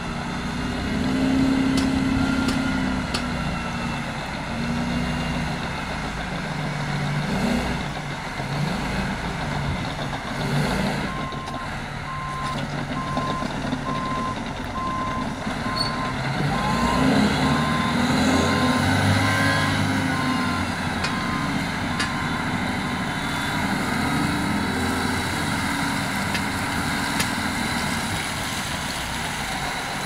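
Hitachi EH1100 rigid dump truck's diesel engine running under load as it manoeuvres on the fill, with a reversing alarm beeping steadily at one pitch for about twelve seconds in the middle.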